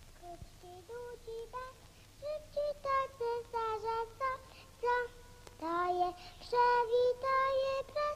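A high, child-like voice singing a slow melody alone, one note after another. It starts faintly and grows louder about halfway through.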